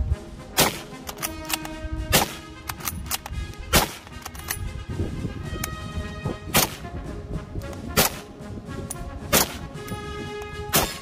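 Seven rifle shots from military service rifles, the later ones from an M1 Garand, evenly spaced about a second and a half apart over background music.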